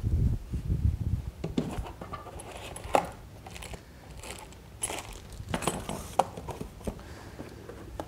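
Handling noise from a plastic angle-grinder dust shroud and its cardboard packing box: scattered clicks, light knocks and rustles, with a few low thumps near the start and the sharpest click about three seconds in.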